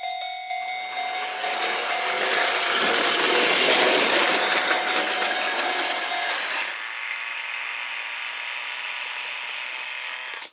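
Model train running through a model railway level crossing: a whirring, clicking rush of motor and wheel noise that swells to its loudest about four seconds in, while the crossing's warning bell keeps ringing. The bell stops about two-thirds of the way through, and a quieter running noise goes on until it cuts off suddenly at the end.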